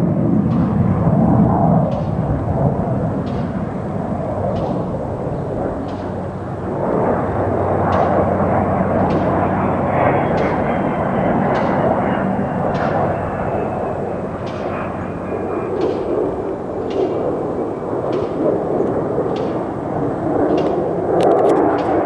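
Airplane engine noise from an aircraft flying over: a loud, steady roar that dips and swells again, with a faint tone gliding down in pitch partway through as the plane passes.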